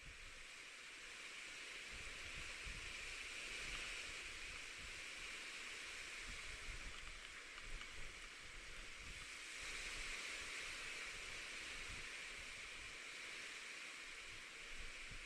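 Rain falling by the sea with waves washing in: a steady hiss that swells twice, about three seconds in and again about ten seconds in.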